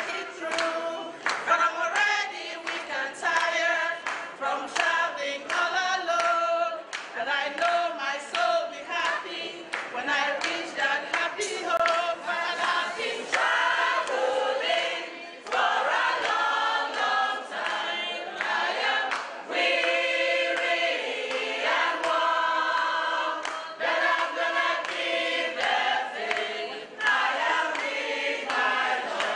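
A group of women singing together, with hand claps throughout.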